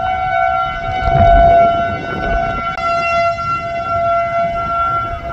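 Outdoor tornado warning siren sounding a steady tone, its pitch starting to fall near the end. Wind rumbles on the microphone underneath, loudest about a second in.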